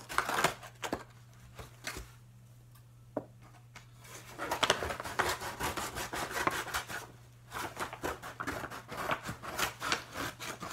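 Scissors cutting through a thick brown paper mailing bag, the stiff paper crackling and crinkling as it is cut and handled, in three spells with short pauses between. The scissors are not very good and cut the paper unevenly.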